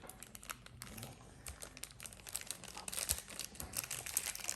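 Toy packaging crinkling and rustling as it is handled and opened, a dense crackle that grows busier and louder partway through.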